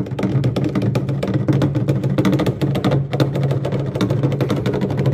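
Background music with a quick, busy percussive beat over a stepping bass line.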